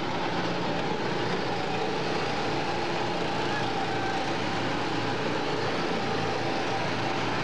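Small go-kart engines running steadily as several karts drive around the track, a continuous mix of engine tones.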